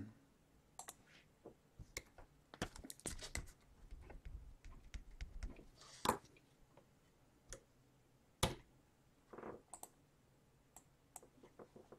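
Faint, scattered clicking and tapping of a computer keyboard and mouse, with a quick run of taps a few seconds in and single clicks after.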